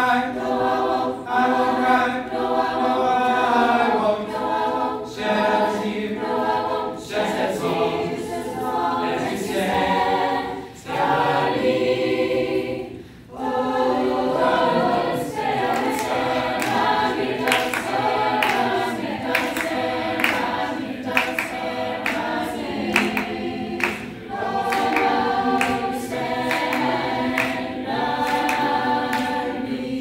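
Mixed youth choir of girls and boys singing in parts. About halfway through, a brief pause, after which rhythmic hand claps, about two a second, join the singing.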